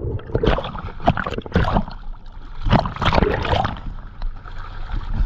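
Water sloshing and splashing in two surges, the first about half a second in and the second about three seconds in.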